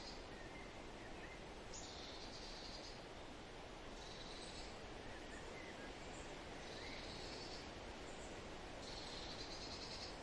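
Quiet wild outdoor ambience: a steady hiss with a high, buzzy trilled call repeating about every two seconds, each lasting about a second, and a few faint short chirps.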